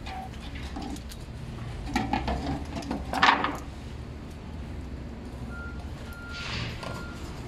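Steady low rumble of site machinery, with a few loud clattering knocks about two to three seconds in. From about five and a half seconds a reversing alarm starts, steady single-tone beeps about half a second apart.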